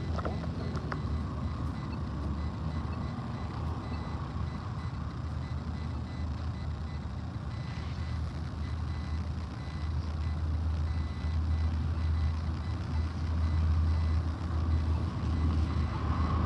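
Low road-traffic rumble at a street crossing, growing louder after about ten seconds as a vehicle nears, with a faint thin high tone from the pedestrian crosswalk signal.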